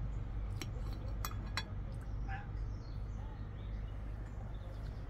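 Metal cutlery clinking against a dinner plate, three sharp clinks in the first second and a half, over a steady low hum.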